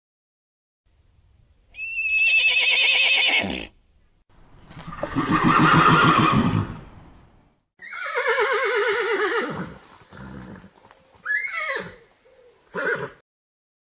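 Mustang (feral horse) whinnying: three long neighs with a quavering pitch, the middle one rougher and lower, then two short falling calls near the end.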